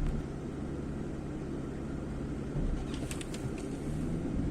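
Aston Martin 6.0-litre V12 engine running at a steady pitch without building revs during a test drive, with a few short clicks about three seconds in. The car is not responding to the throttle: it has poor pickup and is logging misfire codes on every cylinder, which the mechanic traces to a head problem.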